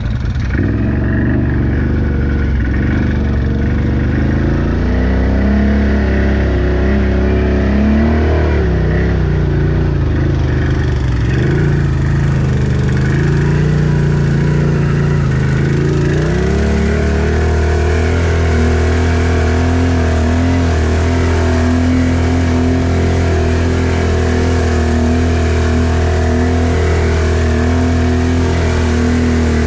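ATV engine running under way, its pitch dipping and rising as the throttle changes between about 8 and 16 seconds in, then holding a steady speed.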